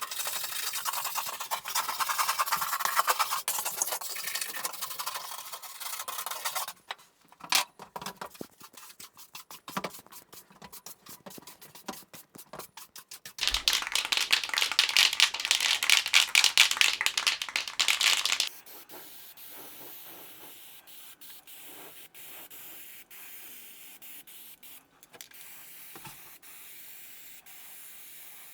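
Loose paint and surface rust being scraped and sanded off bare steel by hand in runs of rapid strokes, loudest in a burst near the middle, then giving way to a quieter steady hiss.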